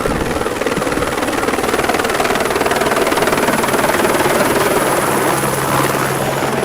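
Helicopter rotor and engine running steadily, a dense, rapid chopping. A fast-wailing emergency siren sounds faintly over it in the first second.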